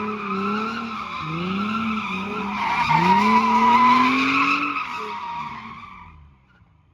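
Car drifting: the engine revving up and down repeatedly under a steady tyre squeal, fading away over the last couple of seconds.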